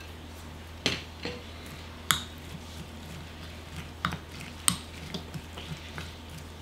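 Wooden spoon stirring a liquid soy-sauce seasoning with chopped chilies and scallion in a small glass bowl, knocking against the glass in several sharp clicks at irregular intervals.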